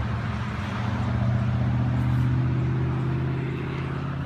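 Engine running steadily with an even low hum.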